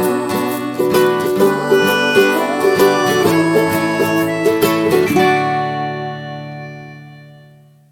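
Instrumental acoustic music of quickly plucked strings. About five seconds in, it lands on a final chord that rings on and fades away to silence near the end.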